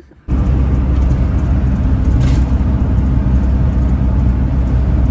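Motorhome on the road: a loud, steady low rumble of engine and road noise that starts abruptly about a quarter second in.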